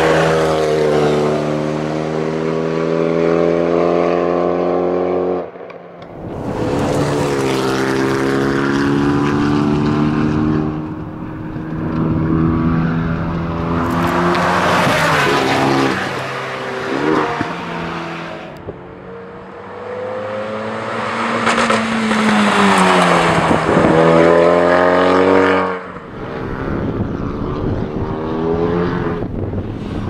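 Renault Mégane RS250's turbocharged 2.0-litre four-cylinder engine at racing pace as the car passes by, revving up and dropping in pitch. The sound is split into several separate passes that cut off abruptly.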